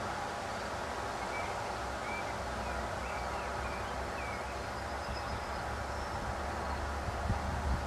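Open-air background noise: a steady hiss with a few short high chirps a couple of seconds in, and a low rumble building near the end.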